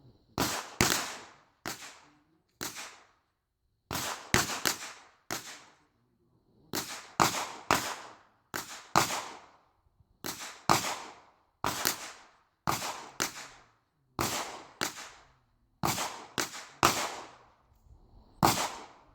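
Gunshots at a shooting range: about thirty sharp reports in irregular succession, often two or three in quick succession with short pauses between, each trailing off in a brief echo.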